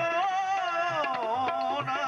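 Punjabi qawwali: a male lead voice singing a long, wavering melismatic phrase over steady held harmonium tones, with tabla strokes underneath.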